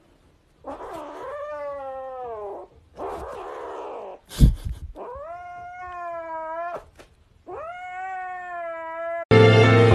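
Grey kitten giving three long, drawn-out meows of about two seconds each, steady in pitch with a slight rise at the start. Between the first two calls there is a short noisy stretch and a sharp thump.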